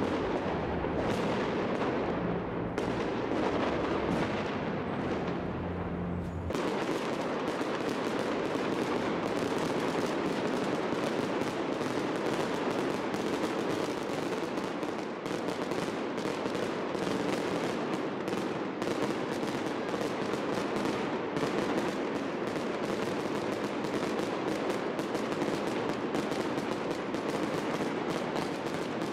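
Fireworks display: aerial shells bursting overhead and crackling in a dense, rapid barrage of bangs.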